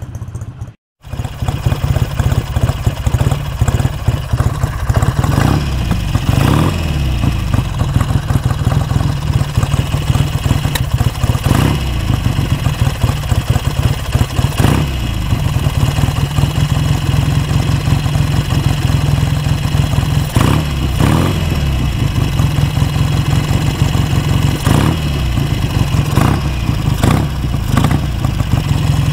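BSA A10 Super Rocket's 650 cc parallel-twin engine running at idle, its revs rising and falling several times as the carburettor's pilot air screw is adjusted to cure running that the owner finds lumpy.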